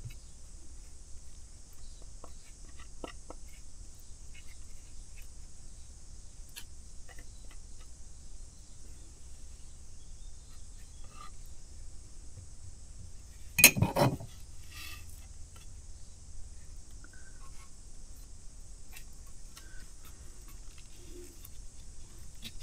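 Faint scrapes and light clicks of a metal knife spreading epoxy glue into a split wooden oar blade on a workbench, with one loud knock a little past halfway.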